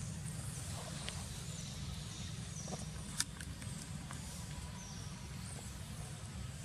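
Outdoor ambience: a steady low rumble under faint, high bird chirps, with a single sharp click about three seconds in.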